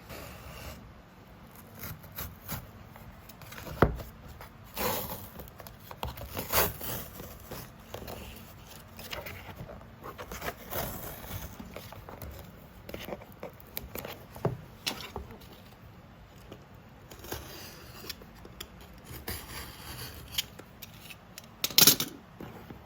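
Hands handling packaging and plastic items: irregular scraping, rubbing and rustling with scattered sharp clicks, one sharp tap about four seconds in and a louder one near the end.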